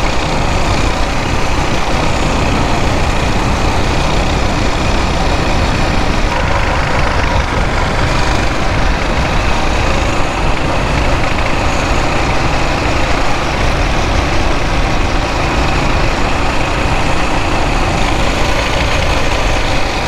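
Coleman BT200X mini bike's 196cc single-cylinder four-stroke engine running steadily while riding at speed, mixed with a constant rush of wind on the microphone.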